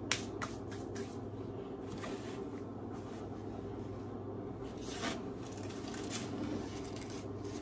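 Quiet kitchen handling sounds: a few light rustles and taps as cloth oven mitts are pulled on and a foil-lined baking tray is gripped, over a steady low hum.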